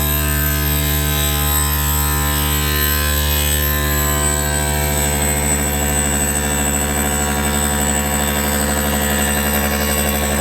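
CNC machine running: a steady electric hum and whine made of many held tones, with a thin high-pitched whine above.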